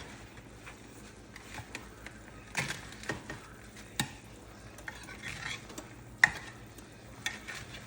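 Scattered clicks and knocks of a utensil against a baking pan as breaded chicken thighs are turned over, with short patches of sizzling; the sharpest knock comes about six seconds in.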